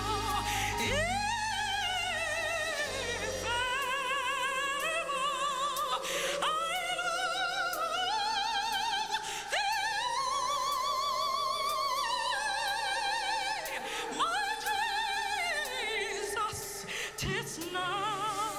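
Female gospel soloist singing long held notes with a wide vibrato, sliding up into several of them. A low held bass note sounds under the first few seconds, then drops out.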